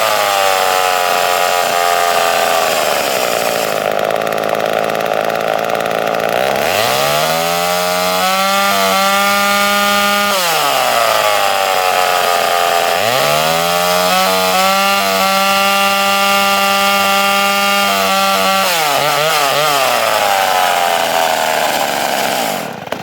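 Poulan 306A two-stroke chainsaw engine running and revved up twice to full throttle, each time held for a few seconds before dropping back, then cut off near the end. Its spark comes from a substituted Nissan Maxima ignition coil, and the saw is running strong.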